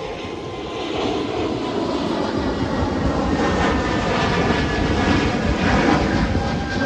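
A steady engine drone with a few faint steady tones in it. It swells louder from about a second in and eases off near the end.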